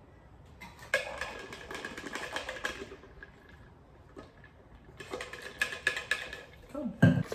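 Ice cubes clinking and rattling in a cup as an iced caramel latte is mixed, in two bursts of about two seconds each.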